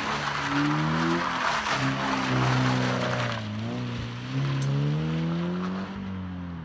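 Scion FR-S's 2.0-litre flat-four engine revving up and down as the car slides on wet gravel, with a loud hiss of spinning tyres and spray for the first three seconds or so. Then the engine note fades as the car drives away.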